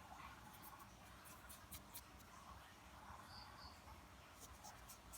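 Near silence with faint, sharp light clicks and ticks that come in two short clusters, one in the first two seconds and one near the end.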